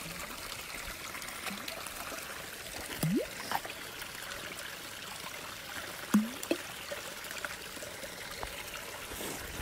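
Spring water of a clootie well trickling steadily, with a couple of brief rising sounds about three and six seconds in.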